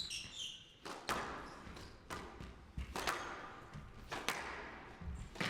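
Squash ball being struck by rackets and smacking off the court walls during a rally: a string of sharp cracks every half second to second, each ringing briefly in the hall.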